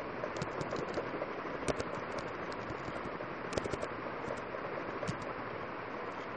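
Computer keyboard keys clicking in short scattered runs over a steady background hiss.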